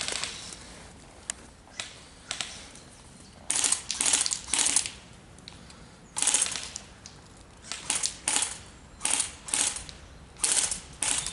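Airsoft guns firing short automatic bursts, a crackly plastic rattle. The first few seconds are fairly quiet, then bursts of about half a second come in quick succession, some in runs of two or three.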